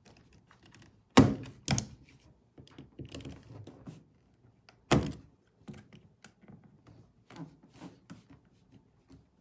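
Utility knife cutting out a thin plastic panel from a brooder wall: faint scratchy scraping strokes broken by sharp knocks, two close together about a second in and another near five seconds.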